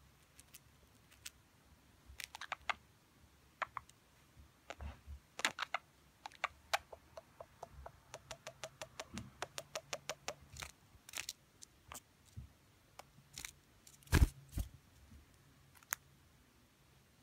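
Budgerigar making short clicking chirps, scattered at first, then a quick even run of about five a second in the middle. One loud knock comes a few seconds before the end.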